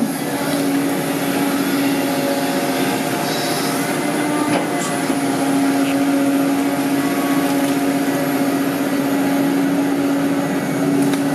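Caterpillar 320D excavator running steadily as it works, its engine and hydraulics giving a constant hum that lifts briefly in pitch about four and a half seconds in.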